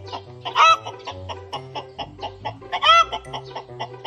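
Two short chicken calls, each rising and falling in pitch, about two seconds apart, over background music with a steady beat.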